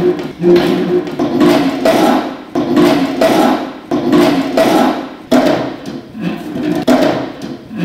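A quick run of hollow knocks on chair backs, about two a second, each with the same pitch and a brief ringing tail, as one chair after another is struck along a row.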